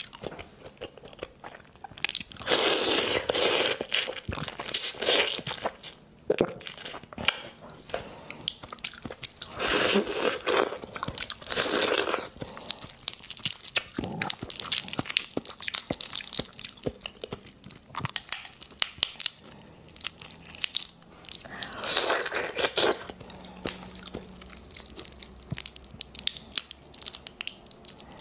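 Raw botan shrimp shells crackling and clicking as they are peeled apart by hand close to the microphone, with three louder stretches of crunching.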